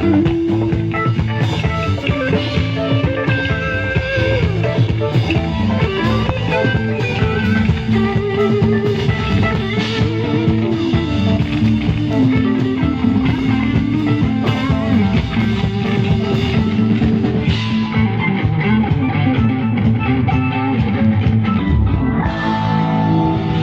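Rock band playing live: electric guitar with bass and drum kit.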